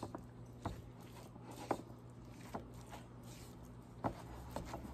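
Metal fork stirring ricotta and shredded mozzarella in a ceramic bowl, with about six light, irregular clicks as the fork knocks against the bowl.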